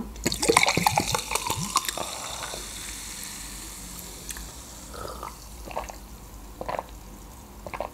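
Orange drink poured from a plastic bottle into a glass, the liquid splashing into the glass and trailing off after a couple of seconds. It is followed by several separate swallows as the drink is drunk.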